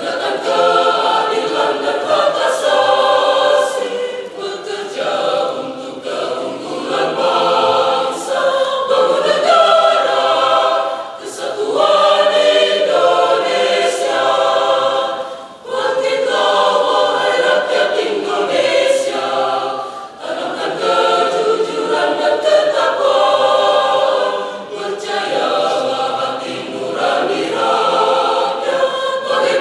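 Mixed choir of men's and women's voices singing in several-part harmony, in long phrases with brief breaks between them.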